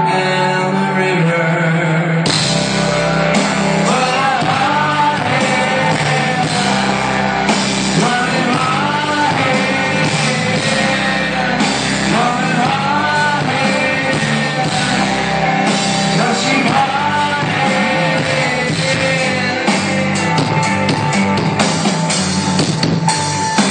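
Live rock band playing: a man singing lead over electric guitars, bass and drums, heard through the hall's PA. The full band comes in about two seconds in.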